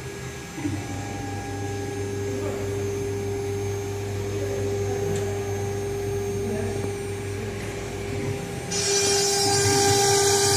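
3 kW water-cooled spindle of a CNC router engraving machine running with a steady whine and a low hum beneath it. About nine seconds in, the router bit starts cutting into the board, and a louder hissing rasp of the cut joins the whine.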